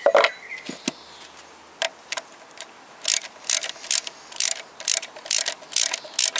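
Socket ratchet wrench undoing the second nut of a Toyota VVT-i engine's timing chain tensioner. A few separate metal knocks come first, then from about three seconds in a quick, even run of ratchet clicks, about three a second, as the handle swings back and forth.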